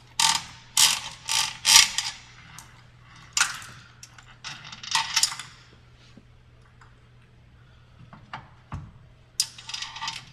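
Metal drive parts clinking and rattling in several short bursts of sharp clicks, loudest in the first two seconds and again near the end, as the spring pulley and step chain are worked on by hand.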